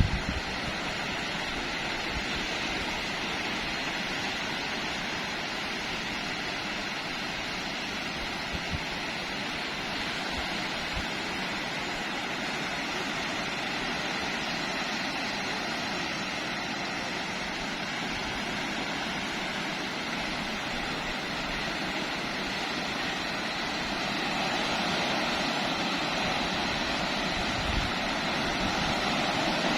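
Sea surf breaking and washing ashore: a steady rush that grows a little louder about six seconds before the end.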